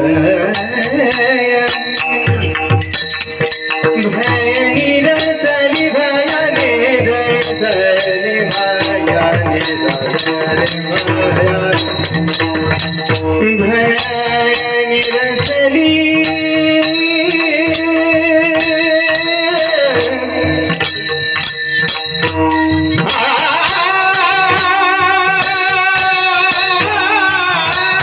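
Marathi Warkari kirtan music: voices singing the closing devotional tune with gliding and long-held notes, over a steady fast beat of metallic hand percussion and a mridang drum.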